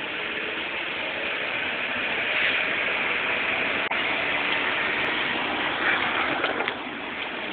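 Porsche 930 Turbo's air-cooled turbocharged flat-six running steadily, heard from inside the cabin under a constant mechanical hiss, with a few light clicks about six seconds in.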